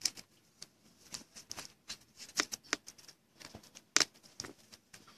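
Glossy Panini Prizm football cards being handled: an irregular run of light clicks and slides as cards are flicked through and set on the table, one sharper snap about four seconds in.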